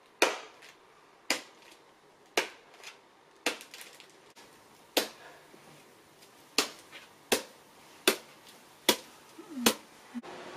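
A series of about ten sharp knocks or clicks, roughly one a second at first, then coming faster, about one every three-quarters of a second, in the second half.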